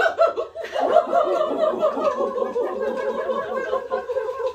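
A group of voices chanting 'wu wu wu' monkey battle cries together, a long whooping chorus with laughter mixed in.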